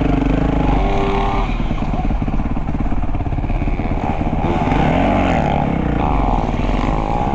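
Motocross bike engines running hard, their pitch rising and falling as they rev.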